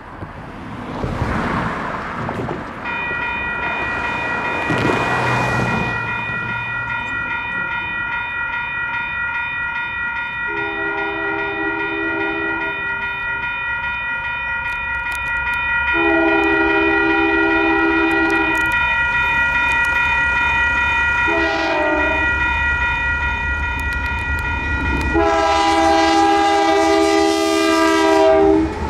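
Railroad crossing's electronic bells ringing steadily, starting a few seconds in, while a Union Pacific freight locomotive's air horn sounds the grade-crossing signal: two long blasts, a short one and a final long one. The low rumble of the train grows as it reaches the crossing near the end.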